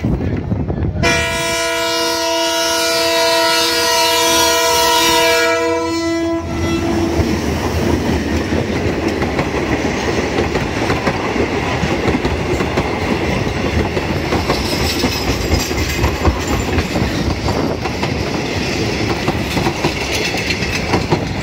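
A passenger train's locomotive horn sounds one long blast of about five seconds, a chord of several tones. Then the coaches rumble past close by, their wheels clattering over the rail joints.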